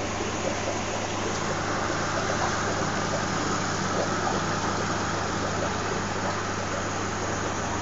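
Aquarium air pumps and filters running: a steady low electrical hum under a constant hiss of moving water and air.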